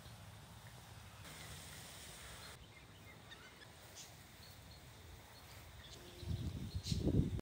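Outdoor garden ambience: a steady low rumble with a few faint bird chirps, and a louder low rumble coming in near the end.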